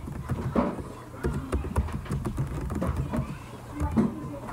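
Faint, indistinct voice fragments that overlap, over a low hum, broken by frequent sharp clicks.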